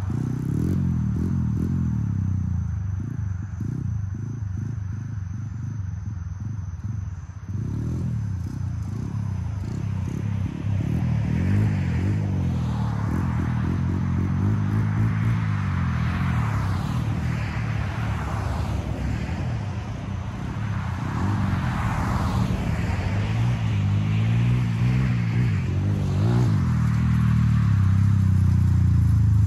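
Small single-cylinder engine of a 125 cc Chinese pit bike running, its pitch rising and falling as it is blipped and ridden. Several cars swell past in the background during the middle stretch.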